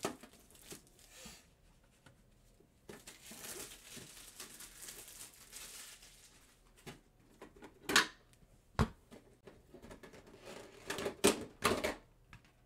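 Handling of a Pokémon card tin and its plastic packaging: a few seconds of soft plastic rustling and crinkling, then sharp clicks and knocks of plastic and tin, the loudest about eight seconds in and a quick cluster near the end.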